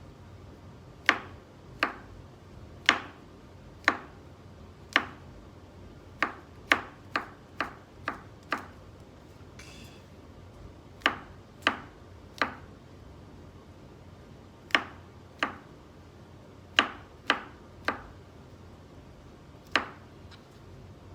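Kitchen knife chopping mushrooms on a cutting board: single sharp knocks, mostly about a second apart, with a quicker run of chops about seven seconds in and short pauses between.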